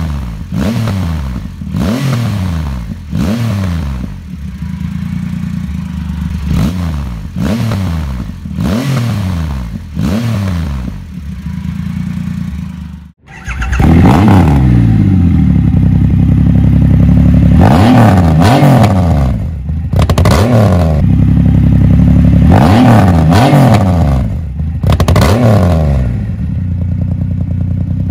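2021 Triumph Rocket 3's 2,458 cc inline three-cylinder engine blipped repeatedly from idle, each rev rising and falling quickly. For the first half it runs through a polished stainless Patriot exhaust, about one blip a second. Then the sound cuts off suddenly and comes back louder through a second, black aftermarket exhaust, with fewer and longer revs.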